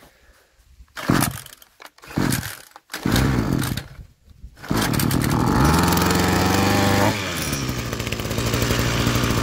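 Titan 26cc two-stroke multitool engine being pull-started from cold on its automatic choke: a few short pulls, a brief catch, then it starts about five seconds in, runs fast for a couple of seconds and drops to a steady lower speed.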